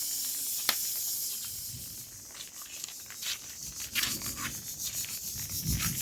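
Rough rubbing and scraping strokes that grow louder toward the end, with scattered clicks, over a steady high hiss.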